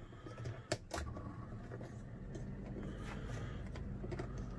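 Several sharp clicks from a refrigerator's cold-control thermostat knob being turned, the loudest about a second in. A low steady hum from the refrigerator comes up right after.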